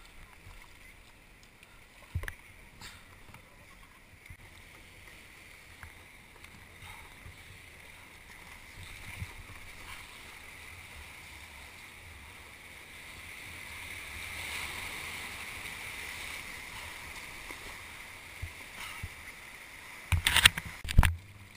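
Sea water washing around a kayak's hull in small surf. The steady wash swells about two-thirds of the way in. Near the end the kayak runs into breaking white water, with a cluster of loud splashes and knocks close by.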